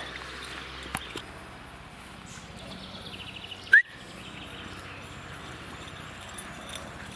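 Quiet outdoor ambience of a grassy field with faint birdsong. About halfway through comes a single short, sharp, high chirp, and the sound cuts out for a moment right after it.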